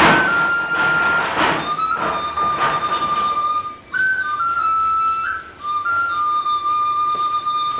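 Slow background-music melody on a flute-like instrument: long held notes stepping between a few pitches, with bursts of hiss in the first few seconds.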